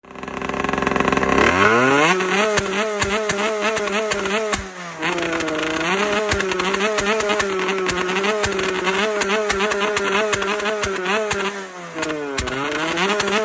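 Small 49cc two-stroke motorcycle engine revving up from low to high revs and held there with a buzzing, wavering pitch. The revs drop briefly about five seconds in and again near the end before climbing back up.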